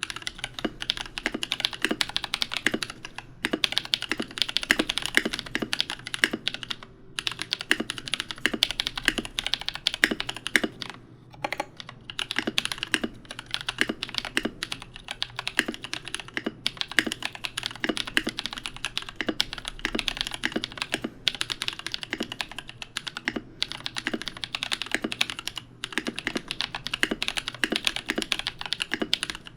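Fast, continuous typing on a Melody 65 mechanical keyboard with a brass plate, lubed and filmed Drop Holy Panda tactile switches and PBT keycaps. Dense keystrokes are broken by brief pauses every few seconds.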